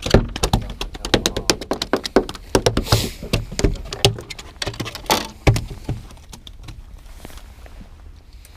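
A freshly landed flounder flopping on a fiberglass boat deck: a fast run of knocks and slaps that dies down about six seconds in.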